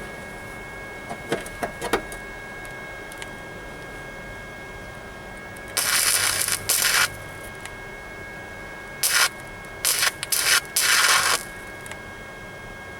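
Flux-core wire-feed welder arcing on a sheet-metal floor-pan patch in short bursts of spot welding: one burst of about a second, then four shorter ones a few seconds later.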